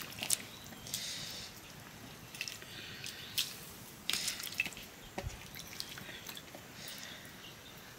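Light water dripping and splashing, with scattered sharp clicks and ticks and a few short hissy splashes.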